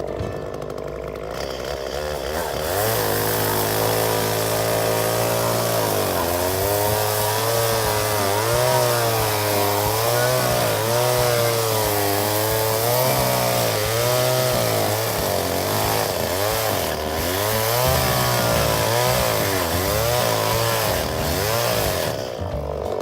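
Chainsaw running at high speed, its pitch wavering up and down as it works; it comes up to full speed a couple of seconds in and drops back near the end.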